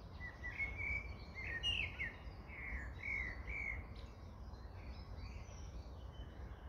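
Birds calling: a quick run of short, high chirping notes through the first four seconds, then fainter scattered calls, over a low steady outdoor rumble.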